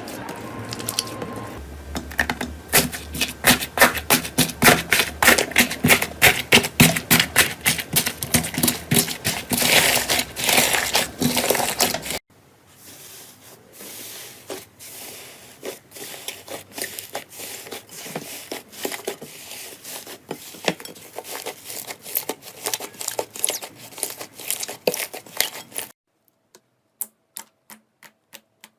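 Slime being squeezed and pressed by hand, giving rapid crackling and popping clicks. The sound changes twice: after about twelve seconds the clicking turns quieter, and near the end it becomes slower, evenly spaced clicks.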